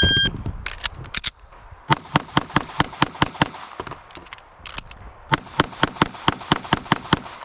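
An electronic shot-timer beeps once as the start signal. Then a competition pistol, a Walther Q5 Match, fires strings of rapid shots, several a second, with short breaks about a second in and about four seconds in.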